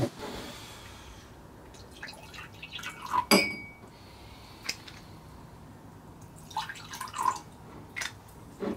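Liquor poured from a bottle into glass tumblers, the liquid trickling and splashing, with a sharp ringing clink of glass on glass about three seconds in and a few lighter taps of glass afterwards.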